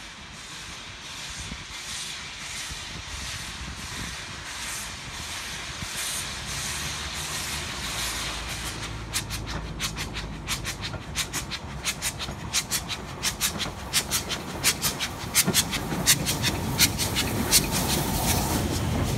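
Steam locomotive approaching and passing close by. Its exhaust chuffs beat steadily at about two a second and grow louder. From about halfway, many sharp clicks of the wheels over the pointwork and rail joints take over, with a heavier rumble near the end as the engine comes right by.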